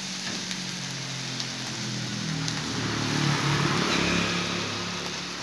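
Fried rice sizzling in a hot wok, with a motor vehicle's engine running close by that grows louder about three seconds in and then eases off.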